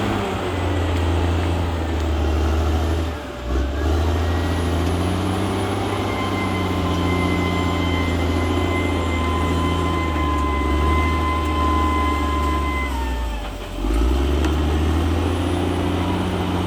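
CAT D6R XL bulldozer's diesel engine running under load, its low note dipping briefly about three seconds in and again near the end. A steady high whine joins it about six seconds in, then slides down in pitch and fades out around thirteen seconds.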